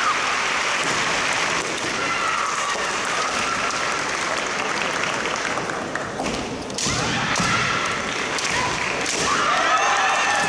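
Female kendo fighters give long, high-pitched kiai shouts several times, over a steady din of hall and crowd noise. A few dull thuds are heard among them.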